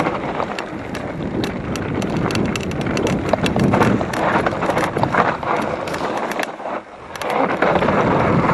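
Mountain bike clattering and rattling over rough ground on a downhill descent, with many sharp knocks and wind buffeting the microphone. It eases briefly about seven seconds in.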